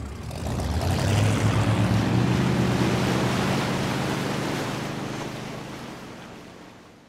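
A speedboat's engine running at speed with the hiss and rush of its wake churning the water, swelling about a second in, then fading away steadily as the boat pulls off into the distance.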